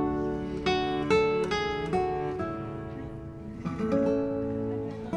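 Background music: acoustic guitar playing a melody of plucked notes.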